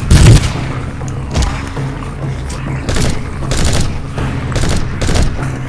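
Rifle gunfire: one loud shot right at the start, then about five more shots, roughly a second apart, over background music.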